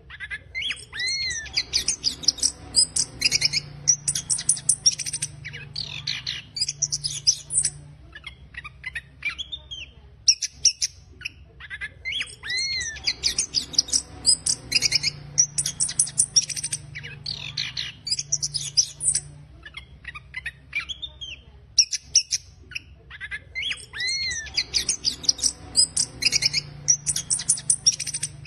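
Chestnut-capped thrush (anis kembang) singing a rough, rapid twittering song (ngeriwik kasar) of high, sharp notes and short glides. It comes in bursts a few seconds long with brief pauses, and the same run of phrases comes back about every eleven seconds.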